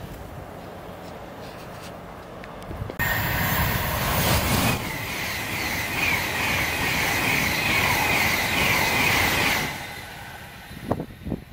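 Virgin Trains Class 390 Pendolino electric train passing at speed close by: a loud rush of wheels on rail and air with a high steady whine, starting suddenly about three seconds in and dying away near the end. Before it, a quieter steady rumble.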